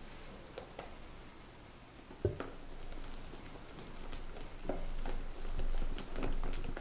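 Wire whisk stirring meringue into red velvet cake batter in a glass bowl: wet stirring with light clicks of the wires on the glass, getting louder and busier in the second half. A single sharp knock sounds a little over two seconds in.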